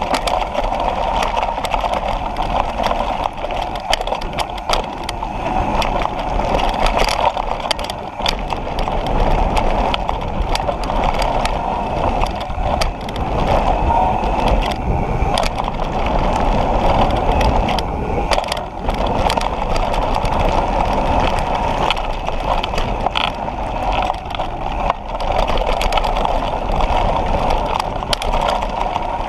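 Mountain bike descending a trail at speed: steady wind and tyre noise with frequent sharp rattles and clicks from the bike over rough ground, heard through a handlebar-mounted GoPro in its housing.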